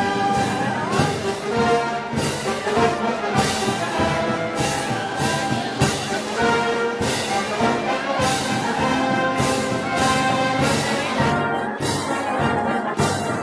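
Brass band music of the Moros y Cristianos festival: trombones and trumpets play a march melody over a steady beat of drum and cymbal strikes, about one every half second or so.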